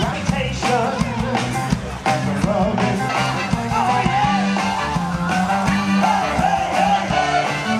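Live band playing at an open-air concert, with a singer's voice wavering over bass and drums.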